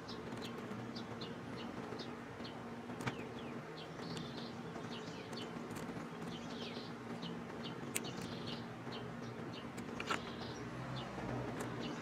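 Outdoor ambience: short high chirps repeating throughout over a steady low hum, with three sharp clicks of a screwdriver on the terminal screws of an old garden-tractor ignition switch.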